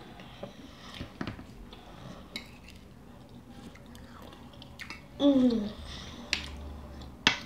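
Eating sounds: spoons clinking and scraping on plates, with chewing. About five seconds in, a short vocal sound that falls in pitch is the loudest thing, and two sharp clinks follow near the end.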